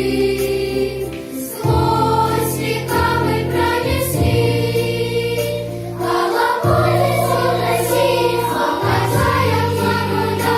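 A choir singing in sustained chords over a steady instrumental bass, with short breaks between phrases about a second in and about six seconds in.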